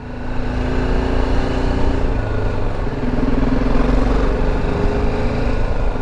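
BMW G310GS motorcycle's single-cylinder engine running as the bike rides off slowly; the sound builds during the first second and then holds as a steady low rumble.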